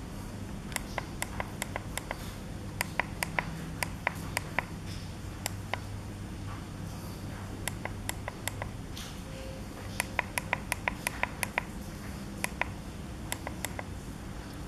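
Runs of quick plastic clicks from the push buttons on an e-bike LCD display, pressed in rapid series to step through its settings such as wheel size, over a steady low hum.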